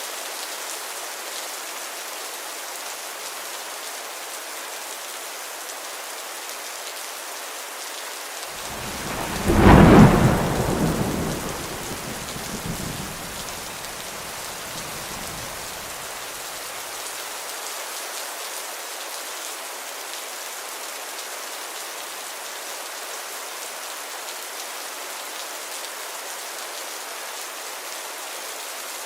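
Heavy rain falling steadily. About eight seconds in, a clap of thunder builds, cracks loudest a second later, then rumbles away over several seconds.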